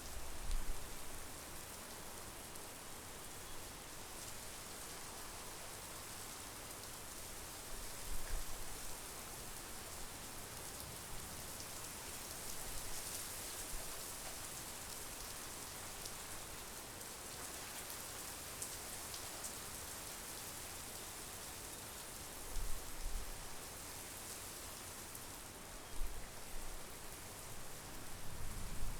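Steady monsoon rain falling in a dense, even hiss, broken by a few brief low rumbles, one about eight seconds in and a couple near the end.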